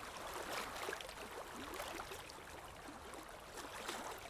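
Shallow river water babbling and trickling over rocks, a steady rush dotted with small crackling splashes.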